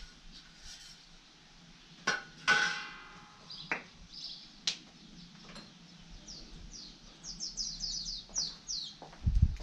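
A few knocks and a metallic clank that rings on briefly about two and a half seconds in, as a metal pipe is set against a brick wall. Near the end, a bird gives a quick run of short falling chirps.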